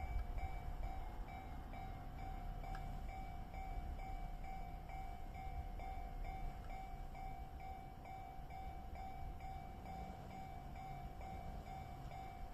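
Japanese railway level-crossing alarm ringing its electronic warning bell in a rapid, even repeat, with the low rumble of a passing train underneath.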